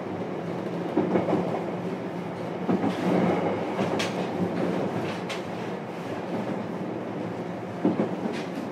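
JR Kyushu 303 series electric train running, heard from inside motor car MoHa 303-103: a steady rumble and hum of the running gear, with a few sharp clacks of the wheels over rail joints.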